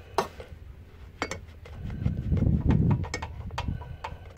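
Ratcheting wrench on a snowblower engine's oil drain plug, scattered metallic clicks as it is worked back and forth to loosen the plug, with a low rumble about two seconds in.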